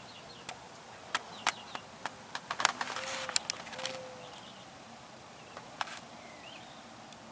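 Outdoor ambience with faint bird chirps and a scatter of sharp clicks and taps, bunched most densely between about two and three and a half seconds in.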